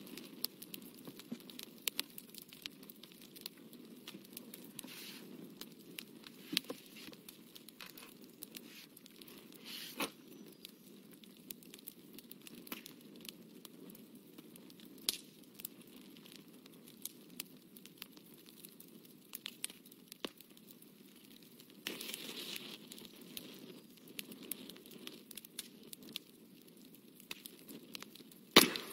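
Quiet sounds of watercolour painting: a fine paintbrush scratching and dabbing on paper, with scattered small clicks and taps. A short louder rustle comes about two-thirds of the way in, and a sharp knock near the end.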